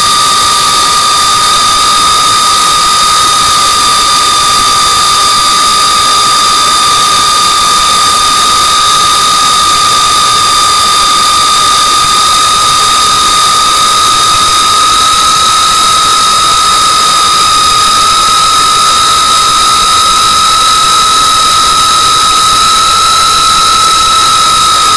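FPV quadcopter's brushless motors and propellers whining steadily in flight, several high tones over a rushing hiss, the pitch creeping slightly higher toward the end.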